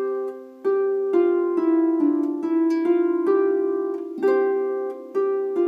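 Double strung harp being plucked: a phrase of single notes at about two a second, each left ringing under the next, demonstrating an easy way to play a Scottish-style figure.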